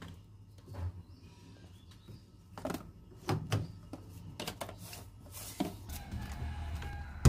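Scattered knocks and clicks of a plastic detergent jar being handled at an open top-loading washing machine as powder is poured into its detergent drawer and the jar's cap is dealt with, ending in a louder knock.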